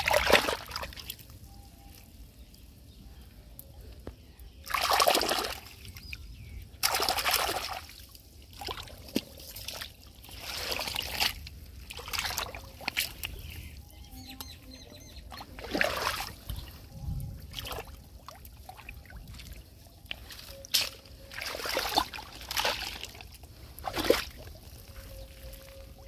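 Hands splashing and scooping in shallow muddy water and wet mud, in irregular bursts a second or two apart.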